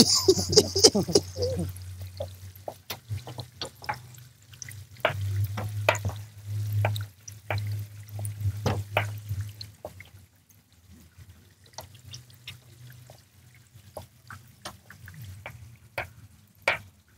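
Scattered light clicks and taps of cooking work, from cookware such as a glass pot lid and knife work on a cutting board, over a low steady hum.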